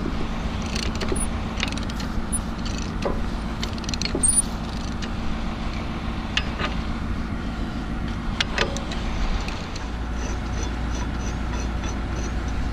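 Cat 225DLC excavator's diesel engine running steadily at idle, with scattered metal clinks and knocks from work at the bucket linkage. About ten seconds in, the low rumble grows as the arm starts to move.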